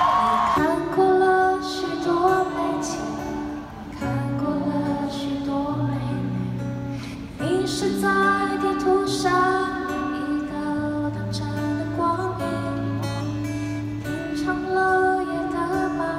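A woman singing a Mandarin song live on stage, accompanied by acoustic guitar.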